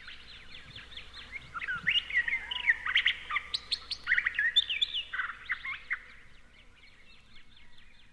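Recorded birdsong played back from the vinyl record: many quick chirps and short whistled glides in a busy chorus, thickest in the middle and thinning out near the end.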